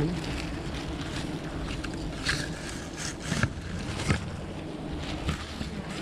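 Swarm of wild honey bees buzzing around their opened nest in a steady drone, with a few short clicks or knocks as the honeycomb is worked.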